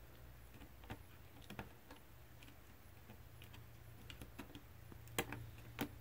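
Faint, scattered clicks of a precision screwdriver turning and seating on tiny screws in a DJI Mavic Pro drone's plastic body, with two sharper clicks near the end.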